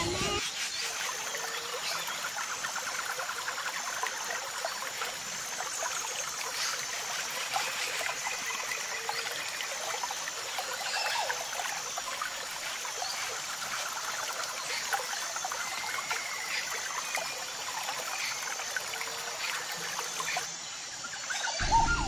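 Steady trickling, bubbling water, an even wash with faint high squeaks through it.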